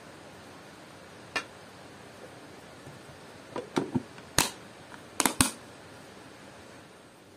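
Kitchenware being handled while bread dough is made: about eight sharp clicks and knocks, one early and the rest bunched together a few seconds in, over a faint steady hiss.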